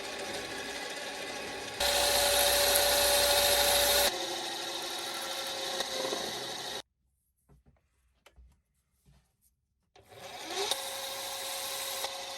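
Mini lathe running with a steady whine while a cutting tool turns small decorative grooves into a steel handle; it is louder for about two seconds near the start as the tool bites. The sound cuts out for about three seconds in the middle, then the lathe runs on.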